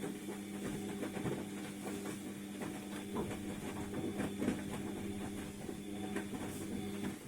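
ATLANT washing machine tumbling a load of wet rags during the wash cycle: a steady motor hum with irregular sloshing and clicking from the turning drum, stopping right at the end.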